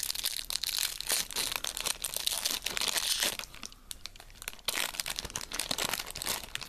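Foil wrapper of a 1992 Dinamation DinoCards trading-card pack being torn open and crinkled by hand. It goes in two spells of dense crackling, with a short lull just past halfway.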